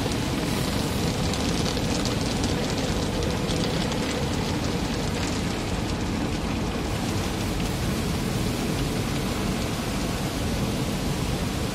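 Water jets of an automatic car wash spraying onto the car's windshield and body, a steady hiss and patter heard from inside the cabin.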